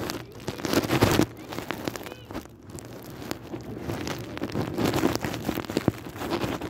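Irregular rustling and crackling with many scattered clicks.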